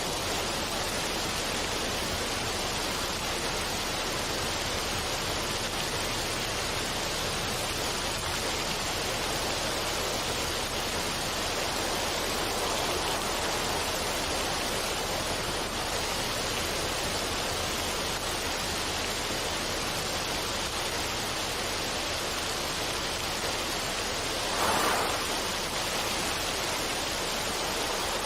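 Steady rush of running water, even and unbroken, with one brief louder swell near the end.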